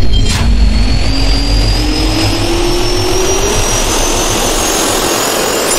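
Jet-turbine spool-up sound effect: a loud, deep rumble under a whine that rises steadily in pitch, stopping abruptly at the end.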